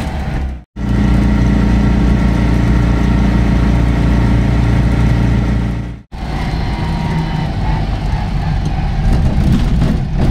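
Citroën 2CV's engine running steadily under way, heard from inside the poorly insulated cabin. The sound cuts out briefly twice, under a second in and about six seconds in.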